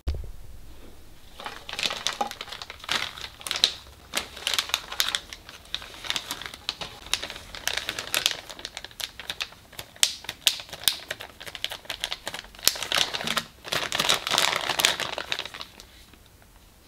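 Dried shiitake slices rattling and crackling as they are handled and packed into a plastic zipper bag, the bag crinkling. It is a dense, irregular run of crisp clicks that starts about a second and a half in and stops shortly before the end.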